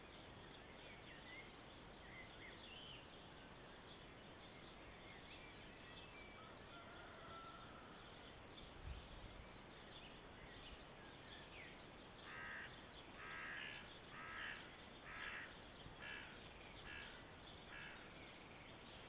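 Faint outdoor ambience with a few thin bird chirps, then a bird giving a row of about six harsh calls, roughly one a second, in the last third. A brief low thump comes near the middle.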